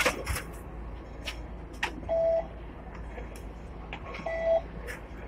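Two short, identical beeps about two seconds apart from a Hong Kong tram's Octopus fare reader, the sign of passengers tapping their cards to pay as they leave by the front door. A sharp knock comes right at the start, with a steady low hum and scattered clicks underneath.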